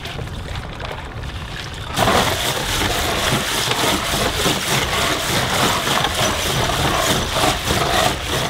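Small shells rattling and clattering as they are shaken in a wire-mesh sieve, louder and denser from about two seconds in, over a steady low rumble.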